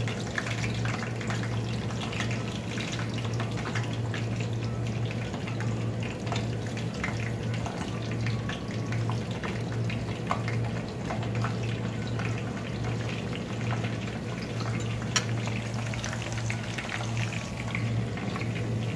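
Boiled chicken thigh pieces sizzling and crackling steadily as they fry in hot oil in a frying pan, over a steady low hum. A single sharp click about fifteen seconds in.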